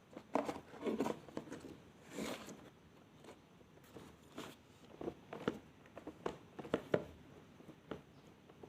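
Elmer's glue slime squished and pulled by hand, making irregular sticky clicks and soft squelching pops.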